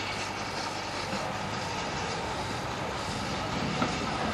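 BR Standard Class 4MT 4-6-0 steam locomotive 75027 approaching with its coaches: a steady train running noise.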